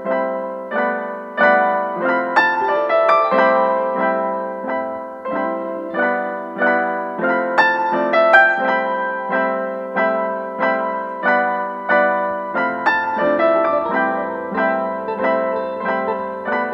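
Background piano music: evenly repeated chords struck about twice a second, with a low bass note coming in about twelve seconds in.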